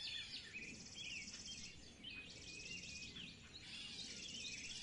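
Faint birds chirping in the background, many short calls one after another, with a high trill that starts and stops every second or so.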